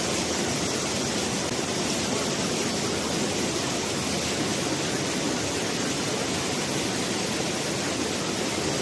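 Ohtamış waterfall pouring down in a steady, even rush of water.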